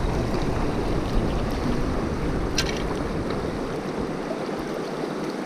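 Shallow river water rushing and rippling around legs standing in the current, with a low rumble on the microphone that drops away about four seconds in. A single sharp click about two and a half seconds in.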